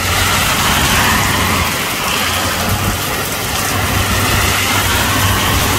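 Heavy thunderstorm rain pouring steadily onto pavement, with a steady low hum of a vehicle underneath as a pickup passes on the wet road.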